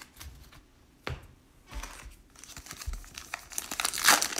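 A sealed baseball card pack being handled: a few light taps, then its wrapper crinkling and tearing as it is opened, building up and loudest near the end.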